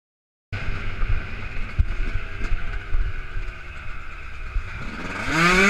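A dirt bike engine runs under wind buffeting the microphone, starting about half a second in. Near the end the engine revs up and falls back.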